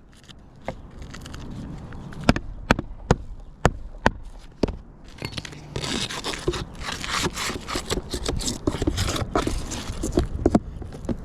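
Roof shingle repair work: a handful of sharp, separate knocks, then dense scraping and crackling from about halfway in.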